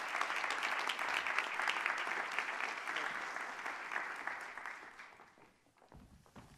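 Audience applauding in a hall, a dense patter of clapping that fades out about five seconds in. A few low thumps follow near the end.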